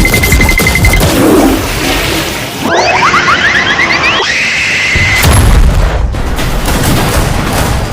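Loud, stacked cartoon sound effects: continuous booming and crashing noise with a heavy low rumble. A short beeping tone sounds at the start, and a run of quick rising whistles comes around the middle.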